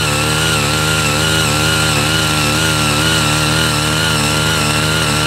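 Small power tiller engines running steadily at high revs while the rotary tines dig into the soil during a tilling depth test; the pitch wavers slightly up and down as the engines work under load.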